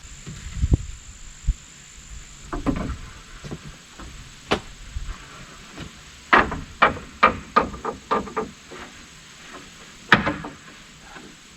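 Hammer driving nails into wooden roof strips: a few single knocks, then a run of about eight quick strikes, then one more blow near the end.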